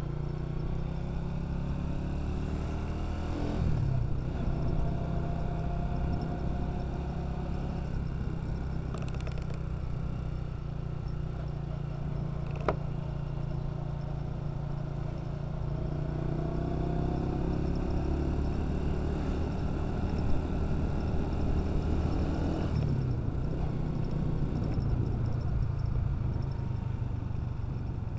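Honda CG 125's single-cylinder four-stroke engine running as the motorcycle is ridden, with road noise. The engine note shifts a few seconds in and again about two-thirds of the way through, and a single sharp click sounds near the middle.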